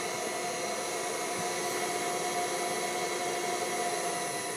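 Three-phase electric motor running unloaded at high speed on a Teco variable frequency drive, overspeeding at about 90 Hz: a steady whirring hum with several steady whining tones. Much of this noise comes from the drive rather than the motor.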